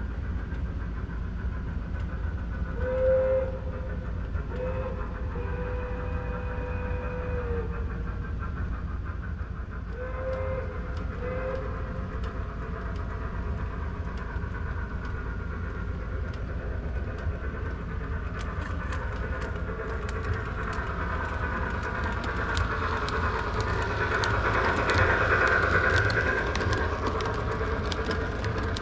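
Model steam locomotive's electronic sound-system whistle blowing a short blast, then a short and a long one, then two more short blasts about ten seconds in, over the steady rumble of an O gauge train running on the track. Near the end cars roll past close by with a rapid clicking of wheels over the rails, and the sound swells.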